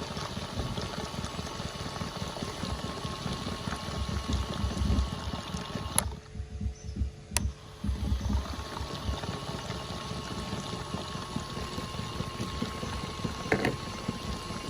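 Small toy washing machine, modified for high speed, running with water churning and sloshing in its drum over a steady wavering motor whine. The whine cuts out with a click about six seconds in and starts again a couple of seconds later.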